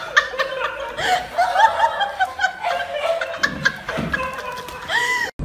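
High-pitched laughter: a rapid run of short, repeated 'ha' bursts, several a second.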